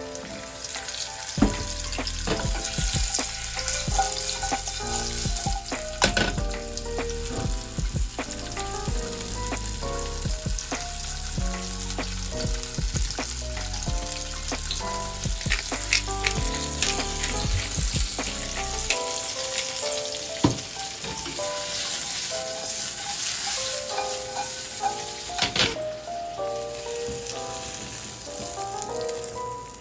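Food sizzling as it fries in a pan, with a few sharp clicks along the way; the sizzle drops away near the end. Background music plays throughout.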